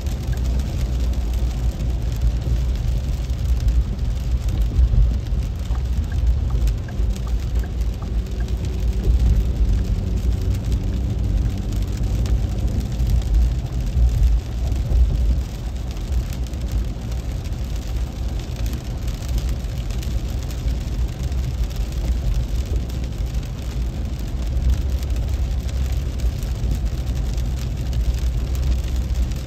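Heavy rain on the car and the wet road, heard inside a moving car's cabin over a steady low rumble of tyres and engine. A faint hum comes through for a few seconds in the middle.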